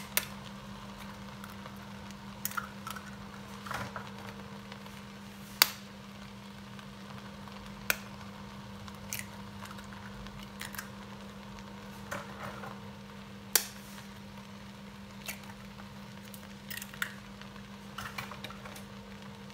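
Raw eggs being cracked one after another onto rice cooking in a pan: a sharp tap every second or two, over a steady low hum.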